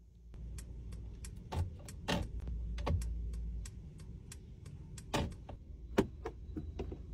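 Mercedes EQS 580 turn-signal indicator ticking steadily, about three ticks a second, over a low cabin hum. A few louder clicks of interior controls come in between, the sharpest about six seconds in.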